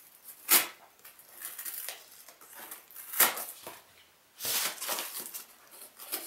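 Plastic bubble wrap crinkling and a polystyrene foam packing box rubbing and creaking as a wrapped coffee grinder is worked loose from it. There are two sharp cracks, about half a second in and about three seconds in, and a denser burst of crinkling and rubbing near the end.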